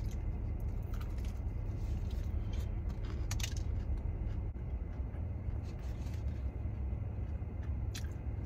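Close-up chewing of crispy fried chicken, with scattered short crunches and mouth clicks over a steady low hum from the car's idling engine.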